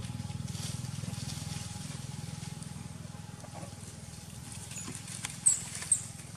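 Steady low motor hum, slowly fading. Near the end come two sharp, high squeals about half a second apart from scuffling macaques.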